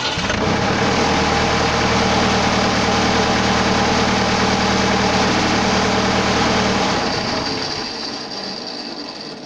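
An old tractor's diesel engine starting at once and running steadily, its note falling away about seven seconds in.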